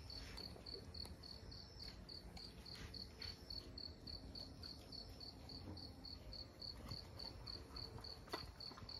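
An insect chirping steadily at night, short high-pitched chirps about four a second, like a cricket. There are a few faint knocks, the sharpest about eight seconds in.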